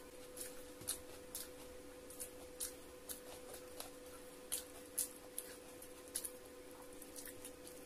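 Close-miked eating sounds: soft, irregular clicks and crackles, about two a second, from chewing and from fingers picking roti and vegetable pulao off a plate, over a faint steady hum.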